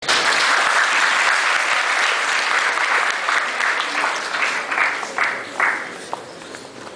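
Audience applauding: dense clapping that thins into a few scattered claps about four to six seconds in and then dies away.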